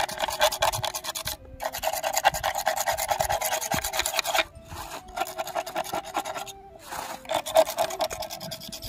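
A stick scraped rapidly back and forth against a wooden brick mould, giving fast, dry rasping strokes with a few short breaks.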